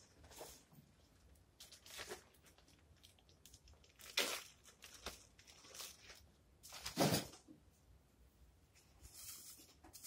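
Plastic wrap around a lump of red fondant being handled and crinkled in a series of short rustling bursts, the loudest about four and seven seconds in.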